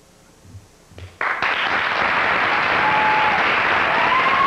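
Audience applause breaks out about a second in and holds steady, with a couple of brief high calls rising over it.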